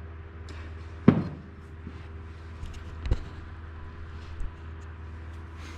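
Two sharp knocks, the louder about a second in and the other about three seconds in, with a fainter one later, over a steady low hum.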